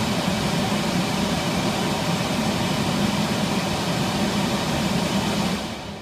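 Squirrel-cage blower of a 27-year-old HVAC system running at full speed with a steady rush of air, its motor now spinning up properly on a replacement run capacitor after a bad capacitor had left it humming without turning. The sound fades away near the end.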